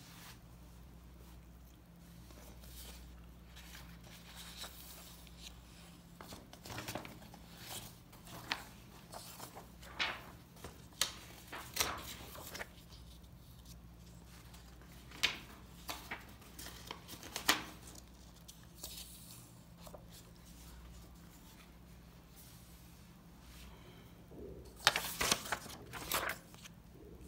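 Paper pages of a printed booklet being handled and turned: scattered short rustles and clicks, with a louder burst of rustling near the end as a page is flipped over.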